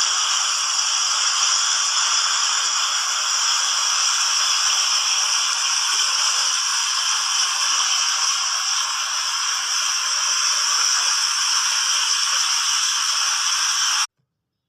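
Water fountain jets spraying and splashing into the basin: a steady hiss of falling water that cuts off abruptly near the end.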